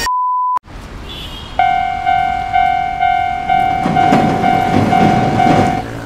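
A short steady beep, then a Japanese-style railroad crossing warning bell ringing about twice a second. Near the end a train rumbles and clatters past on the rails.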